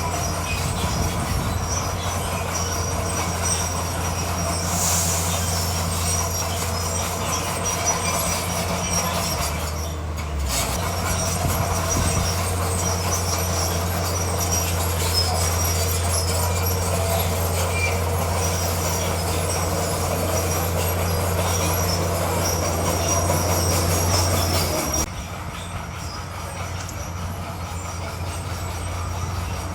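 Crawler bulldozer working: its diesel engine runs steadily under the high metallic squeal and clatter of its steel tracks. About 25 seconds in the sound drops suddenly and the squeal fades.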